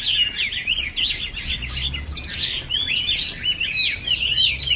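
Chinese hwamei (China thrush) singing a fast, continuous run of varied whistled notes that sweep up and down in pitch.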